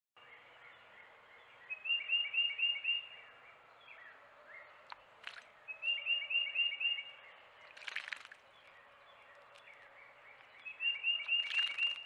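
Carolina wren singing its loud rolling song: three bouts, each a quick run of about five or six repeated phrases lasting a second or so, about four seconds apart. A few short scratchy bursts come between the bouts.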